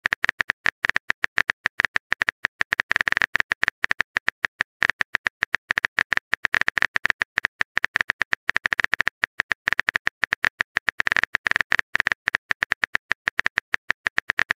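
Simulated phone keyboard typing clicks: a rapid, uneven stream of short taps, several a second, as a message is typed out.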